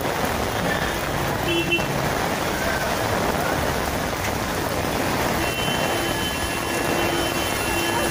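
Heavy rain pouring down, a dense steady hiss of rain hitting the road and nearby surfaces, with traffic faintly beneath it. A faint held tone joins in a little past halfway and lasts a few seconds.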